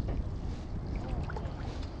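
Paddling a stand-up paddle board: water noise from the paddle and board, a steady low rush with a few small ticks.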